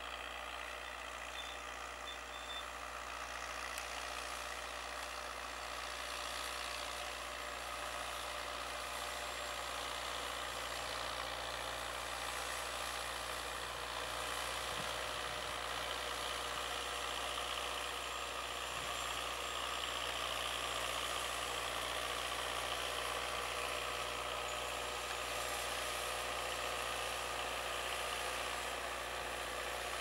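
John Deere 6110M tractor's four-cylinder diesel engine working steadily under load while pulling a four-furrow mouldboard plough through the soil. It grows slightly louder partway through.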